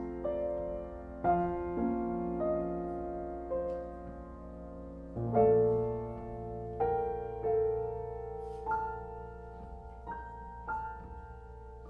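Solo piano playing a slow passage of struck chords and single notes that ring and fade, with a low bass note joining about five seconds in.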